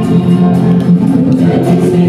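Live music led by guitars playing, steady and loud throughout.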